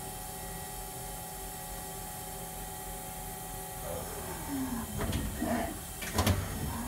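Super Kia Turn SKT-21V CNC lathe running a cycle: under a steady machine hum and hiss, the axis drives whine as the turret moves at rapid traverse, the pitch falling about four seconds in and rising again near the end. Two sharp clunks about five and six seconds in as the turret indexes and locks, the second one louder.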